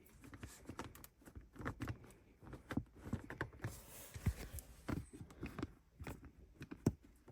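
Faint, scattered clicks, taps and rubs of hands handling a newly fitted shift knob and gear lever, with no rhythm.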